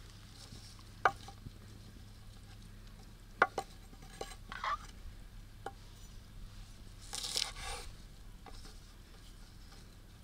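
Cooking-utensil sounds: a few scattered sharp knocks and clinks, the loudest about a second in and a close pair about three and a half seconds in, then a short scraping rush about seven seconds in, over a faint steady low hum.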